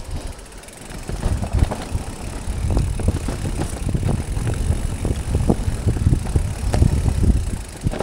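Specialized Levo SL electric mountain bike riding down a wet, rooty dirt trail: tyres rumbling over roots and mud, with frequent knocks and rattles from the bike. The sound is quieter for about the first second, then busy and continuous.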